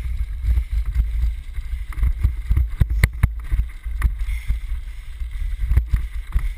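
Steady low rumble of wind buffeting a helmet-mounted GoPro and a dryland sled rig's wheels rolling over a rough trail, with frequent sharp knocks and rattles.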